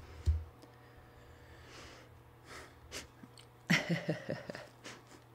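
A person's breath and a short wordless murmur about four seconds in, with a couple of soft thumps at the start and light clicks.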